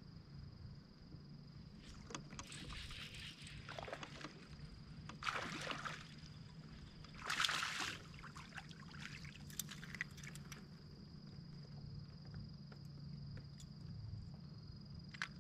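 Faint water sloshing around a kayak hull in three short bursts a few seconds apart, over a steady high-pitched insect drone.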